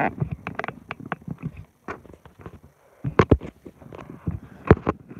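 Irregular knocks and thumps, close to the microphone, with a sharp pair about three seconds in and a single loud one near the end.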